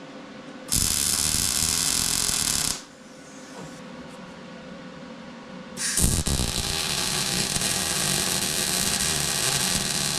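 Electric arc welding on steel: a short burst of arc hiss of about two seconds, then, about six seconds in, a longer crackling weld bead that keeps going. A low hum sits underneath between the two.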